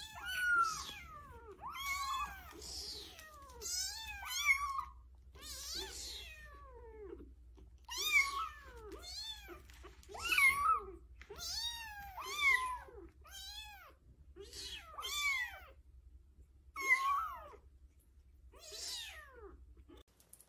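Young kittens meowing over and over: short, high-pitched calls that rise and fall in pitch, about one a second, some overlapping.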